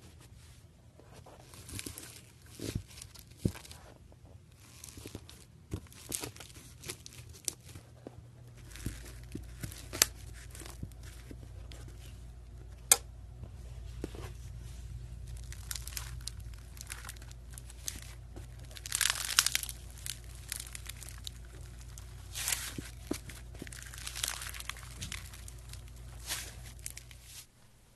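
Slime being worked by hand, with irregular crackles and pops and a few louder squishing swells. A steady low hum sits underneath from about a third of the way in until just before the end.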